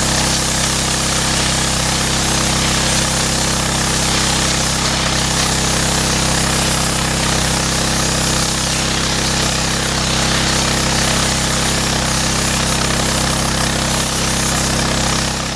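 Pressure washer running steadily: the machine's constant low hum under the loud, even hiss of a high-pressure water jet spraying block paving.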